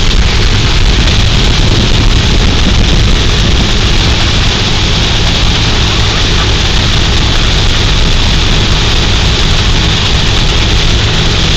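Motorboat running steadily at towing speed: a low, even engine hum under a loud, steady rush of water and spray.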